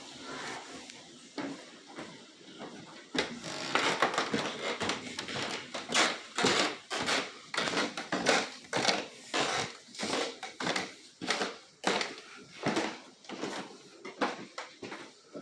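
Movement noise from a person walking back indoors with the camera: irregular footsteps and handling knocks with rustling, about two a second, starting a few seconds in.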